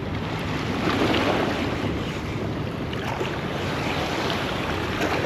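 Steady wind noise buffeting the microphone, with a rushing sound like water.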